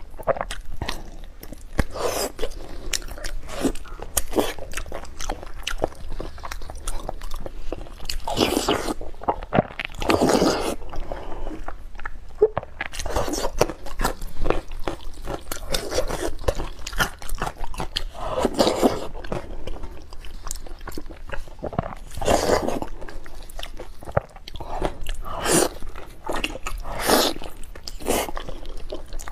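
Close-miked eating of braised beef knee bone at double speed: a rapid run of wet chewing and biting clicks as meat and tendon are pulled off the bone, with several louder, longer smacks and sucks. There is a squish of gloved hands working the meat in sauce.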